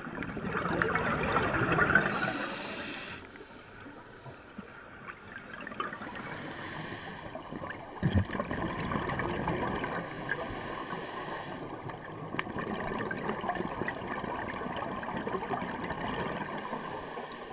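Underwater sound of a scuba diver breathing through a regulator: exhaled bubbles rush out in bursts of a second or two every few seconds over a steady underwater hiss. There is a short knock about eight seconds in.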